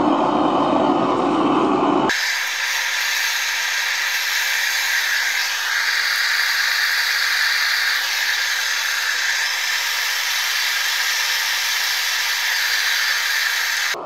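Propane burner flame firing into a furnace chamber: a steady low roar that changes suddenly about two seconds in to a steady high hiss.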